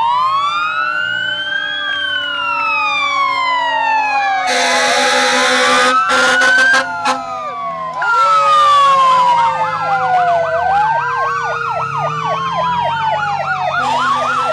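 Several emergency-vehicle sirens sound at once, overlapping wails that rise and fall slowly. A harsh noisy blast cuts in about a third of the way through. From about halfway, a fast yelping warble of about three cycles a second joins the wails.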